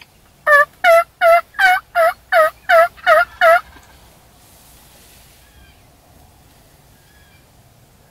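Wild turkey yelping: a run of nine loud yelps, evenly spaced about two and a half to the second, followed by a few faint distant calls.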